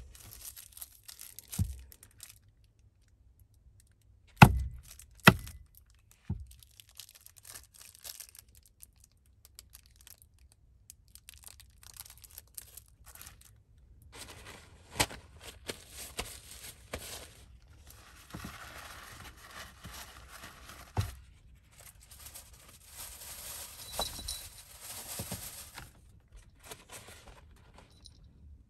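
Paper or plastic packaging crinkling and tearing, with several sharp knocks on a wooden counter, the loudest about four to six seconds in.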